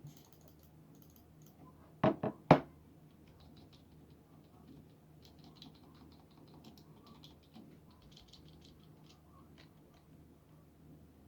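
Three loud thumps about two seconds in, then fast, light typing on a cheap one-dollar computer keyboard, its keys clicking faintly in quick runs.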